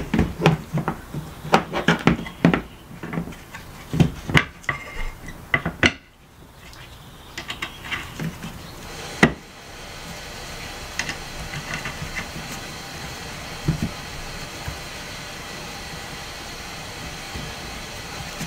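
Clicks and knocks of a wiper arm and plastic cowl trim being handled and fitted back onto the wiper pivot, busy for the first six seconds with one more sharp click a few seconds later. After that a steady hiss with a few faint taps.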